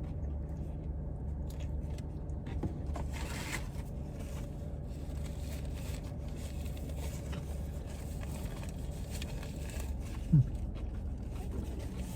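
Steady low hum of a car cabin with the engine idling, under quiet chewing and faint wrapper rustling. About three seconds in there is a brief rustle, and a short, louder low sound just past ten seconds.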